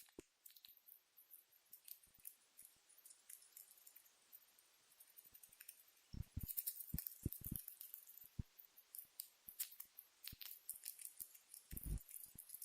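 Pet rat grinding and chattering its teeth (bruxing): faint, rapid, fine clicking, sparse at first and much denser from about halfway.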